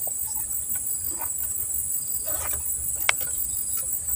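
Steady high-pitched chorus of insects, with a few faint small clicks and one sharp click about three seconds in.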